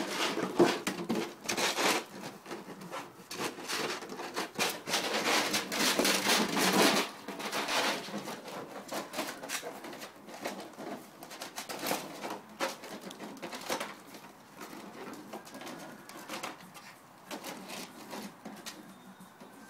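Two Patterdale × Russell terrier puppies tugging and dragging a white plastic bag across concrete: plastic crinkling and scraping in uneven bursts, loudest in the first seven seconds, then fainter and more scattered.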